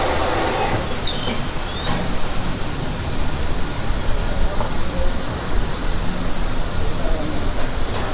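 Steady hissing noise over a low rumble, with no clear start or stop.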